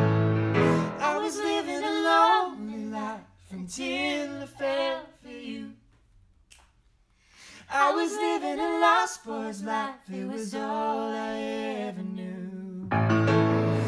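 Male and female voices singing a cappella in a duet, with sliding, ornamented runs; the piano drops out about a second in. The voices stop for a near-silent pause about six seconds in, then resume, and the grand piano comes back in near the end.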